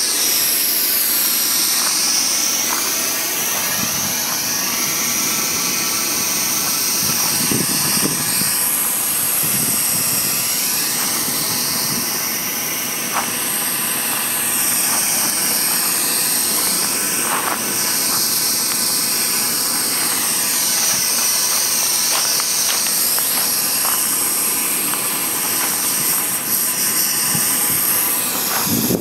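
Handheld flame-thrower weed torch burning with a steady hiss, its flame played over weeds on gravel.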